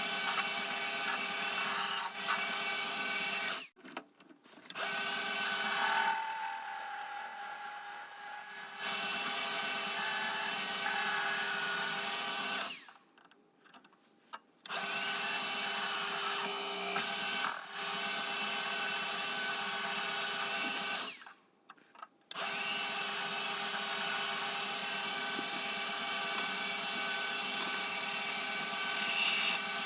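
Metal lathe running steadily, a hum of several fixed tones over a noisy bed, broken three times by short near-silent gaps.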